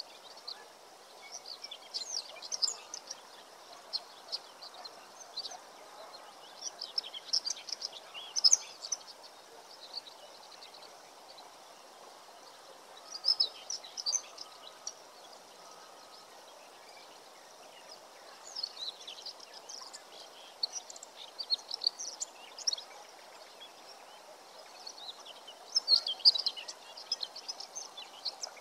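Songbirds singing outdoors: bouts of quick, high chirps and trills, each lasting a second or a few seconds, with pauses between, over a faint steady background hum of the open air.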